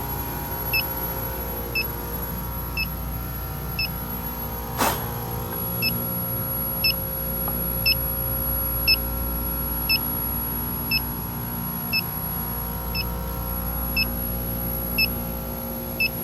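Electronic refrigerant leak detector (an Inficon D-TEK) beeping at a slow, even rate of about once a second, its baseline tick, meaning it is picking up no refrigerant at the probed spot. Under it runs the steady hum of the refrigeration rack's machinery, with one short crackle about five seconds in.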